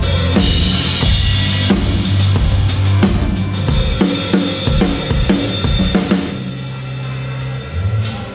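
Drum kit played with a backing track: kick, snare and cymbals, with a bright cymbal wash about half a second in. The drumming stops about six seconds in, leaving a held low note ringing out.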